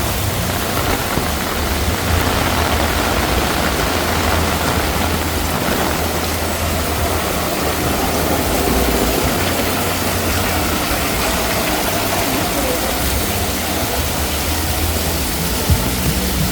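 Heavy rain falling steadily, with the low rumble of traffic engines underneath.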